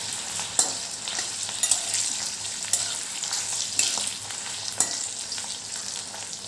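Potato pieces and cumin seeds sizzling as they fry in oil in a kadhai, with a steel spatula scraping and turning them in the pan about once a second.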